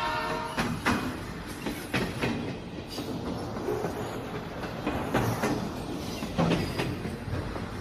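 Train horn cutting off about half a second in, then a train running along the track with irregular wheel clacks over rail joints on top of a steady rumble.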